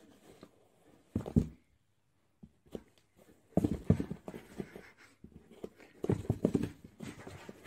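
Cardboard box thumping and scuffing in short clusters of knocks as a cat inside bats and scrabbles at a foot poking through the box's handle hole.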